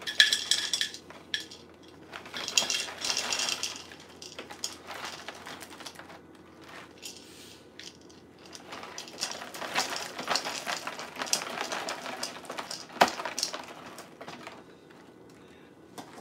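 Dry Trix cereal poured from its box into a glass bowl, the pieces rattling and clinking against the glass. It comes in three pours: two short ones, then a longer one near the end that finishes with one sharp clink.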